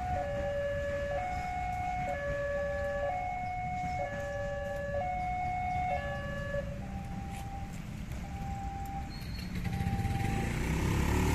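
Railway level-crossing warning alarm sounding an alternating two-tone chime, each tone held about a second. About two-thirds of the way through it switches to a single repeated beep, which then stops. A low rumble of engines runs underneath and grows louder near the end.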